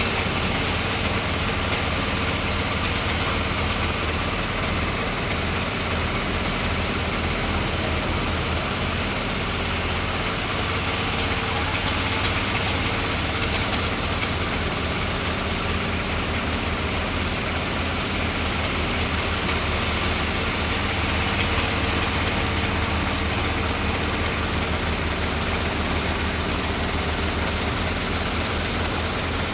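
Generator set's engine running steadily at constant speed, a low, even drone.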